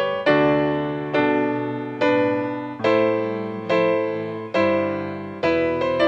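Slow piano music: chords struck about once a second, each ringing out and fading before the next.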